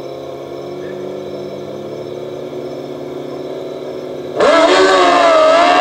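Two sport motorcycles, a Suzuki GSX-R1000 and a Kawasaki ZX-14R, held at steady revs at the start of a drag race. A little over four seconds in they launch at full throttle, and the sound jumps sharply louder, its pitch wavering as the engines rev hard.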